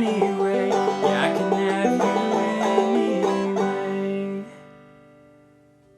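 Clawhammer banjo playing the song's closing phrase and landing on a final chord. The chord is cut off sharply about four and a half seconds in, leaving a faint fading ring.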